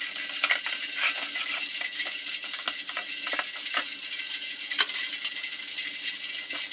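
A hand tossing and rubbing catfish pieces in a corn flour, turmeric and salt coating in a stainless steel bowl: irregular wet squelches and small crackles, with one sharper knock of fish against the metal a little before five seconds in.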